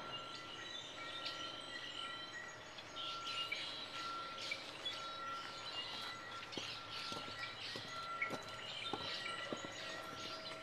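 Birds chirping and calling among the reeds, many short chirps with a repeated high note, over steady outdoor background noise. A series of light knocks comes in the second half.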